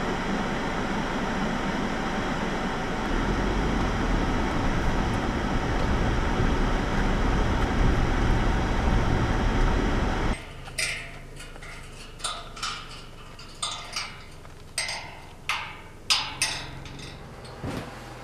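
Car driving on a dirt road, heard from inside the cabin as a steady engine and tyre rumble that grows louder about three seconds in. After about ten seconds it cuts off, and a string of sharp clicks and knocks rings out in a small echoing room.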